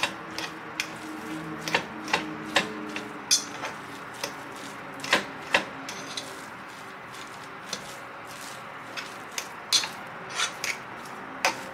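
A metal fork mashing soft boiled red skin potatoes in a stainless steel pot, with irregular scrapes and clicks as it strikes and drags along the pot's sides and bottom.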